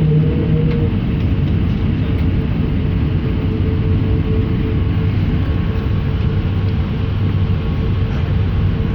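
Airbus A380 cabin noise after landing: a steady low rumble from the aircraft rolling on the ground, with a constant engine hum over it.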